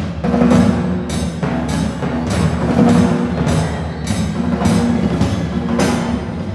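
Symphony orchestra playing a contemporary piece: sustained low notes punctuated by a steady pulse of sharp percussion strokes, a little more than one a second.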